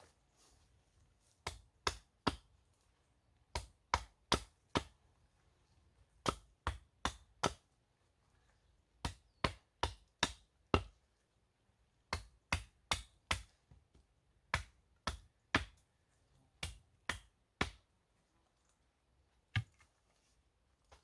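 Chopping: sharp chop strokes in bursts of three to five, about a third of a second apart, with short pauses between bursts and a last single stroke near the end.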